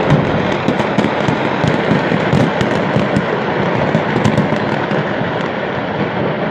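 Fireworks and firecrackers from a burning stock of pyrotechnics going off in a rapid, irregular string of sharp pops and cracks over a steady rumble. The pops come thickly at first and thin out after about four and a half seconds.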